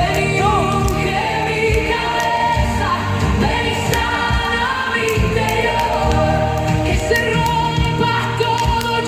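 Christian worship song: held sung or choir-like vocal notes over a band with a steady bass and drum beat.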